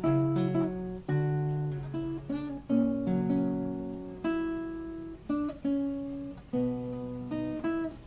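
Acoustic guitar music: plucked notes and chords, each sharply struck and left to ring out before the next.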